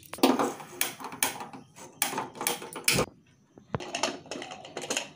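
Knocks and clatter of fresh maize cobs being broken and handled against steel pots, with one heavy thump near the three-second mark. After a short pause come the sharp clicks and scrapes of an aluminium pressure cooker's lid being fitted and locked.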